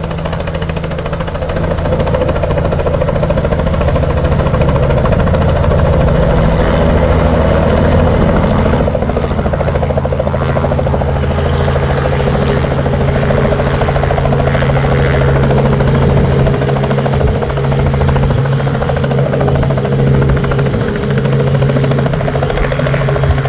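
Helicopter running with a loud, steady drone of engine and rotor, its low hum holding an even pitch.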